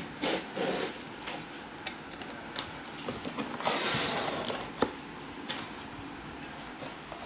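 Cardboard shipping box being opened by hand: the flaps are pulled apart with cardboard rustling and scraping, a few sharp clicks, and a longer scraping rasp about four seconds in.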